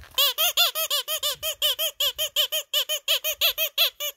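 Squeaky rubber ball toy squeezed over and over in a fast, even run of about six squeaks a second, each squeak rising and falling in pitch; the squeaking stops just before the end.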